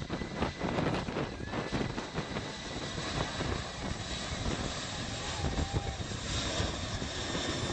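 Airliner engines running: a steady rushing noise with a thin, steady high whine over it.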